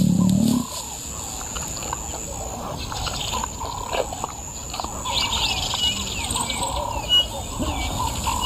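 Savanna ambience: several birds chirping and calling in short, scattered notes over a steady high-pitched hiss. A man's voice trails off in the first half-second.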